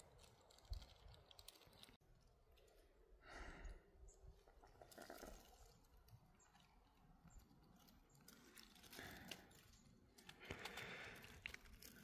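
Near silence, broken by a few faint, brief rustles.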